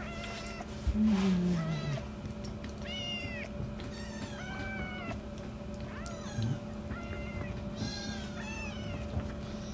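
Tabby kitten mewing over and over in short, high, squeaky cries while it suckles from a milk bottle. A low falling hum about a second in is the loudest sound.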